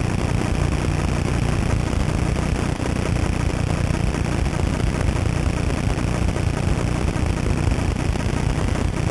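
Steady wind buffeting the camera microphone, a constant low rumble with hiss and no breaks.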